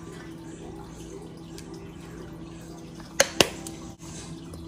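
Two sharp clicks in quick succession about three seconds in, over a steady low hum.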